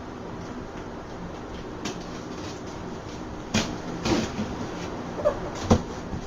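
Cardboard shipping box being cut open and its flaps pulled back: a few sharp knocks and scrapes of cardboard, the loudest between about three and a half and six seconds in.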